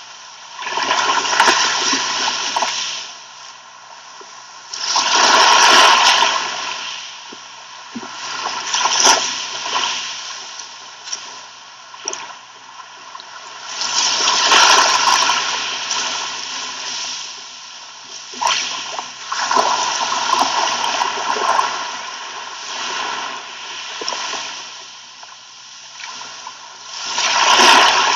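Sea waves washing onto a beach and splashing, each surge swelling and then fading every three to five seconds.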